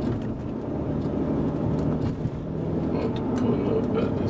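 Steady road and engine noise of a moving car, heard inside its cabin.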